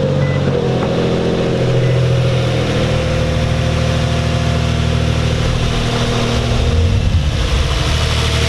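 Infiniti G35's 3.5-litre V6 idling steadily just after start-up, with a brief waver in the idle about seven seconds in. No clear knock stands out, although the owner suspects a rod knock from running the engine about two quarts low on oil.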